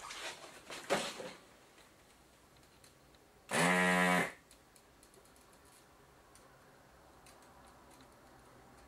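Rustling and clicks for about the first second, then a desoldering gun's vacuum pump buzzing once for under a second, about 3.5 s in, sucking melted solder from the IPM module's pins.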